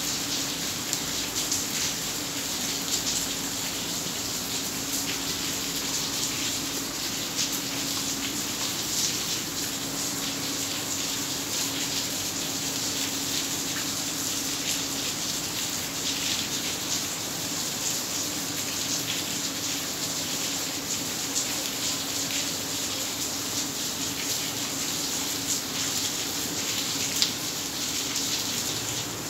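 Heavy rain pouring onto a flooded courtyard: a steady, dense hiss of drops splashing into standing water.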